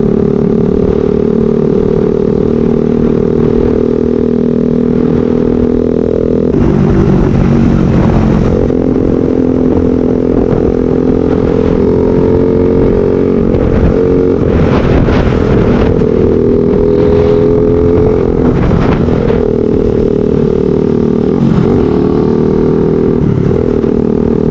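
Motorcycle engine running at road speed, heard from on the bike over a steady low rumble of wind and road noise. Several times the engine note breaks and settles at a new pitch as the throttle changes.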